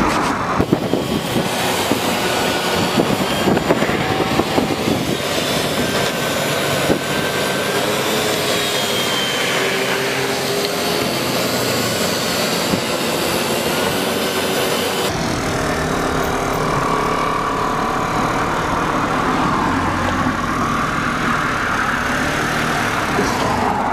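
Small motorcycle engine running on hydrogen fed through a hand valve instead of the throttle, its pitch rising and falling as the bike is ridden. The sound changes abruptly about fifteen seconds in.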